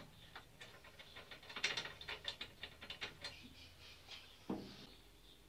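Faint, irregular clicks and taps from hands fitting the go-kart's front axle spindle bracket and its bolt, with one louder knock near the end.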